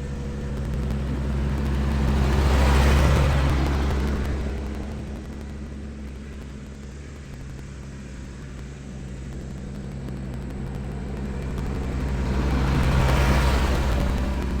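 Tractor engine running steadily while the tractor works the driveway with a box blade. It grows louder and fades twice as the tractor passes close, about three seconds in and again near the end.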